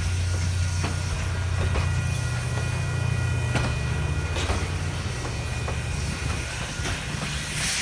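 Railroad passenger cars rolling slowly past. The wheels click over rail joints about once a second over a steady low rumble. A hiss rises near the end.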